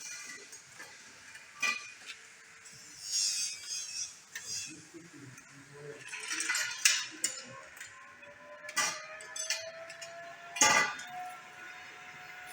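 Metal clinks and knocks of tools and steel being handled, with a faint tone rising slowly from about halfway and then holding steady.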